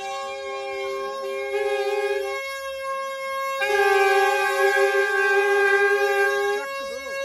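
A reedy wind-instrument drone: several steady pitches held together. The upper notes drop out briefly twice, about two and a half seconds in and again near the end, while the lowest note carries on.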